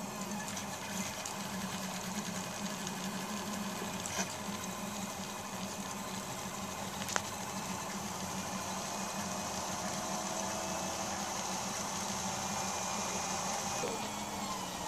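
Prusa Mendel i2 3D printer at work, its stepper motors whirring steadily as the print head and bed move through a print. Two sharp clicks are heard, about four and seven seconds in.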